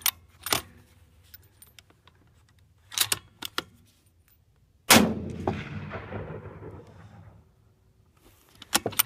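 A Remington 700 in .308 fires a single shot about five seconds in, a sharp report that trails off over two to three seconds. Before the shot come a few metallic clicks as the bolt is worked.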